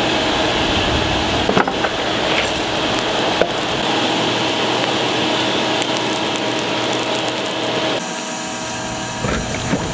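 Wood-fired forge running hot under forced air while an axe head is heated for hardening: a steady rushing drone with a faint hum in it, and two sharp clicks of tongs in the coals. About 8 s in it gives way to a quieter steady noise.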